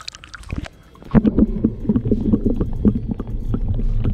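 A camera going into the water with a short splash, then a muffled underwater rumble with crackles and clicks from about a second in.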